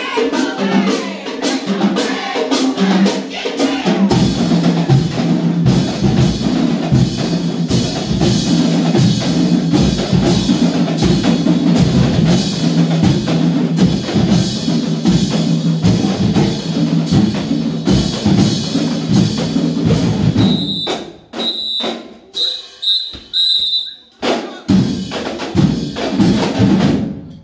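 Marching band drumline playing a driving cadence, with bass drums prominent. About 20 seconds in it breaks into short separated hits with gaps between them.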